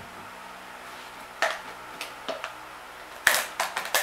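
Plastic clicks and knocks from handling a cut-off water-bottle funnel and plastic antifreeze bottles: one knock about a second and a half in, a few lighter clicks, then a quick run of clicks near the end.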